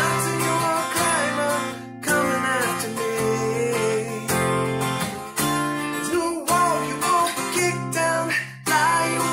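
A man singing while strumming an acoustic guitar, the chords breaking off briefly between phrases.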